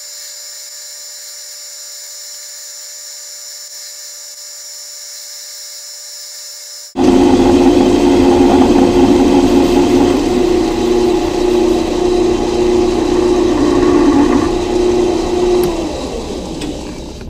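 Grizzly G0602 metal lathe running while taking a heavy 40-thousandths cut in steel: a steady mechanical whine with cutting noise. It sounds thin and high at first, then about seven seconds in turns suddenly loud and full. Near the end the whine stops and the sound dies away as the lathe spins down.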